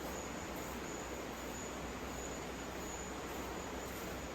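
Steady outdoor ambience: an even rushing noise with insects, crickets or cicadas, trilling thinly and high above it.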